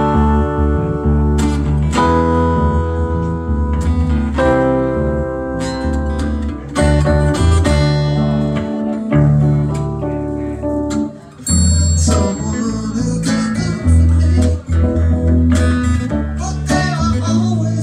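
A small live band playing a song: strummed acoustic guitar and an electric keyboard over a deep bass line, kicking in right at the start after a count-in.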